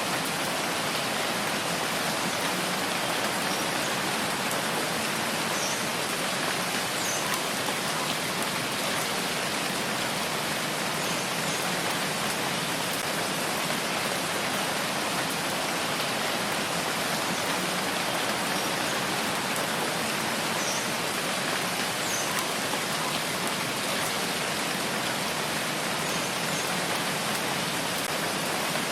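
Steady rain falling, an even, unbroken hiss with no change in strength.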